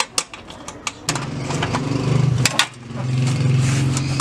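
An engine running steadily for about a second and a half, dropping away briefly, then running again, with sharp metallic clicks of a loosened bolt, nut and washer being handled.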